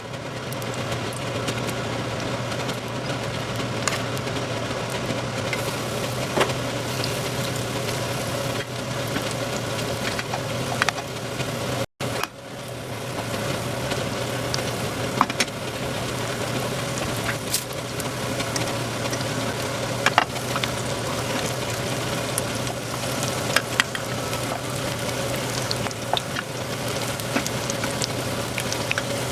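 Korean chive pancake (buchujeon) frying in oil in a pan: a steady sizzle with scattered sharp pops and crackles over a low hum. The sound cuts out briefly about twelve seconds in.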